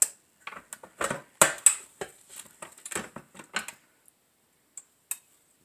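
Electric tortilla press being closed and pushed down on a ball of dough: a run of knocks and clacks over the first four seconds, loudest about one and a half seconds in, then a few light clicks.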